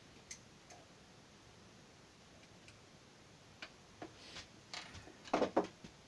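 Small metal hand-tool clicks and snips as thin wires are cut with diagonal cutters. A couple of light clicks, then a quicker run of them, with the loudest pair near the end.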